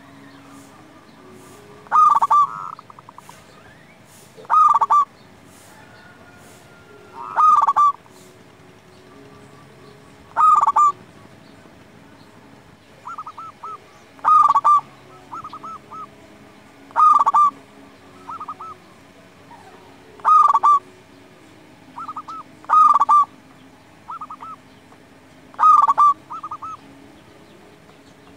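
Zebra dove (perkutut) singing: a short, loud stuttering coo repeated about every three seconds, with softer, shorter trills between the full calls.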